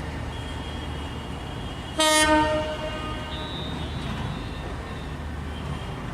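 A train horn gives one short, loud blast about two seconds in, over the steady low rumble of a running train.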